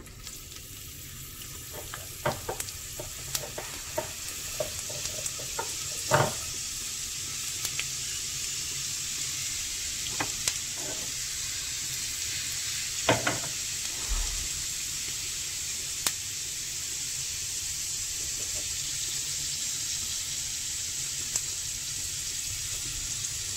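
Chopped onion sizzling as it fries in hot oil in a small non-stick pan: a steady hiss that builds as the onion goes in, with scattered pops and a few louder knocks.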